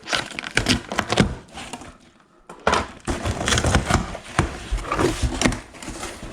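Cardboard boxes and packaging being handled and opened: rustling, scraping and a series of light knocks, with a short pause about two seconds in.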